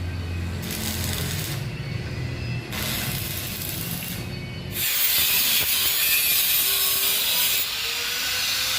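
Welding machine humming with a short sizzle every second or so, then about five seconds in a steady, louder hissing sizzle of an electric arc welding at about 160 amps.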